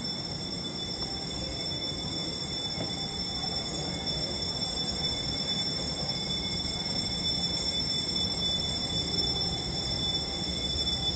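Steady machinery hum of an airport baggage-claim hall, a low rumble with a constant high-pitched whine over it, growing a little louder toward the end. The likely source is the running baggage carousels.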